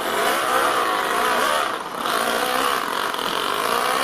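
Toyan FS-L200 two-cylinder four-stroke nitro engine in an RC truck running under throttle, its pitch rising and falling as it revs while the truck drives, with a brief drop about two seconds in.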